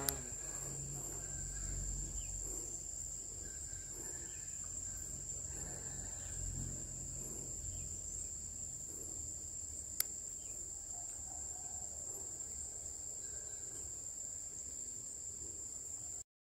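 Insects chirring in a steady, unbroken high-pitched drone over a low rumble of wind, with one sharp click about ten seconds in. The sound cuts out briefly just before the end.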